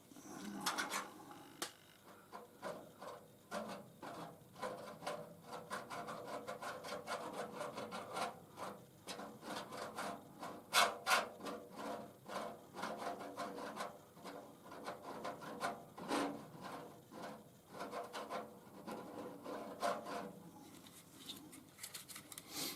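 Short, irregular scraping and rubbing strokes by hand on the cracked copper top of a lamp post, as the cracks are readied for soldering.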